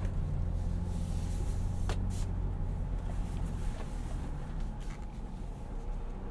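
Ford Bronco's 2.7-litre twin-turbo EcoBoost V6 running steadily at low trail speed, heard from inside the cabin, easing off after about three and a half seconds. A sharp click or knock sounds about two seconds in.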